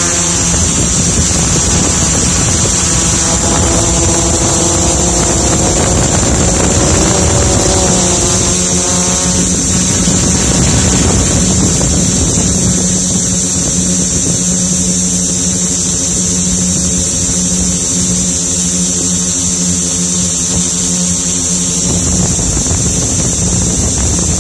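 Multirotor drone's electric motors and propellers whirring steadily, picked up by the craft's own onboard camera, with a constant high hiss over a low hum. The pitch shifts up and down between about four and ten seconds in.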